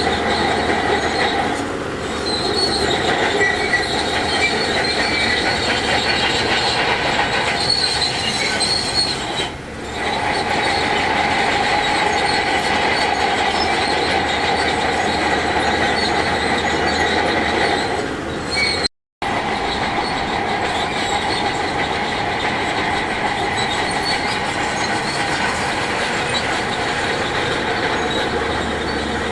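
Crawler bulldozer's steel tracks running with a continuous high metallic squeal over the machine's engine noise. The sound drops out completely for a moment about two-thirds of the way through.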